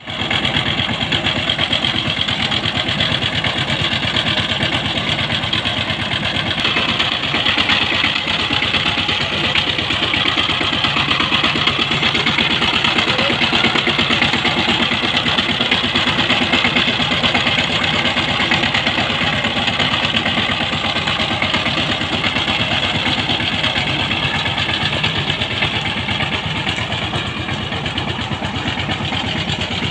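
Two-wheel power tiller's single-cylinder diesel engine running steadily with a rapid, even chugging as it pulls the tiller along.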